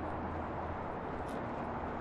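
Electric Mercedes-Benz EQS SUV rolling slowly along a dirt trail: a steady rush of tyre and road noise.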